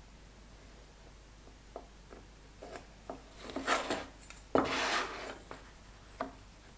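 Wooden kerfing-plane body parts being handled and slid across a wooden workbench: a few light knocks, then two louder scraping rubs around the middle, the second the loudest.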